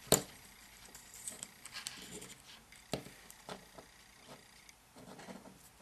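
Small handling noises of wires and heat-shrink tubing being worked by hand: one sharp click just after the start, then scattered light clicks and taps.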